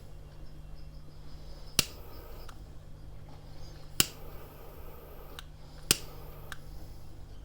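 Three sharp clicks about two seconds apart over a low steady hum, with a few fainter ticks between them.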